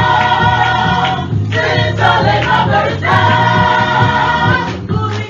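Small gospel choir singing in long held notes over electric keyboard accompaniment.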